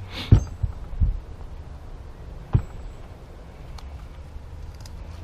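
A few sharp knocks and clicks as metal brake caliper parts are handled and set down, three close together near the start and one more a couple of seconds in, over a steady low hum.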